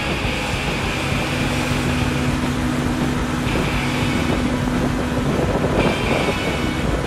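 Diesel engine of a heavy-duty dually pickup running steadily as the truck tows a large speedboat trailer slowly past, getting a little louder about six seconds in.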